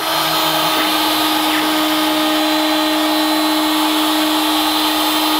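DeWalt DW611 trim router running at speed as a CNC spindle, routing into a wooden board, with a steady whine.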